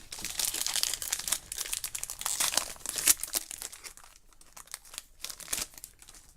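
A trading-card pack wrapper crinkling and tearing as it is opened, dense for about the first four seconds, then a few lighter rustles and clicks as the cards are handled.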